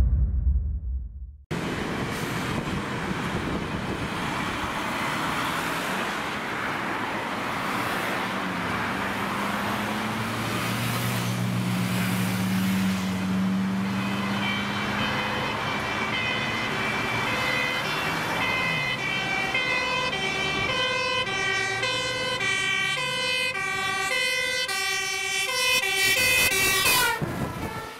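Road traffic with a heavy truck engine passing, then a Dutch fire engine's two-tone siren alternating between a high and a low note, from about halfway through, as the truck approaches on an emergency run.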